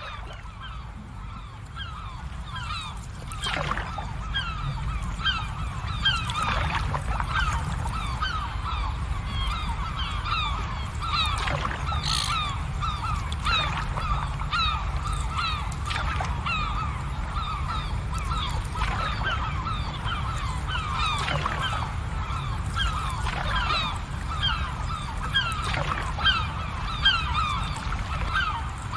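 A dense flock of birds calling at once, a continuous chorus of short honking calls, over a low steady rumble.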